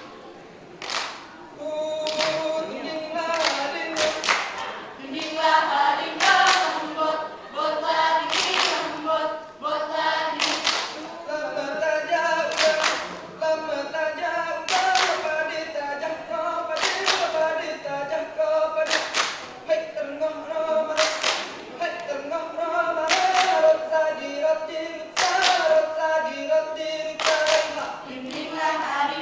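Rampai Aceh dancers singing together without instruments, a group chant held on a steady melody, with sharp hand claps struck in time every second or two, sometimes doubled.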